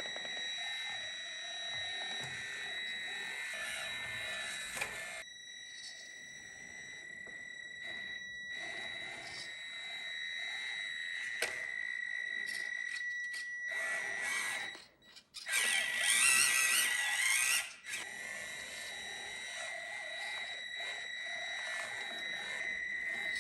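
Electric motor and gear drive of a 1/18-scale FMS Chevrolet K10 RC crawler, giving a steady high-pitched whine while it crawls over obstacles. A louder, rougher stretch of motor and gear noise comes about two-thirds of the way in.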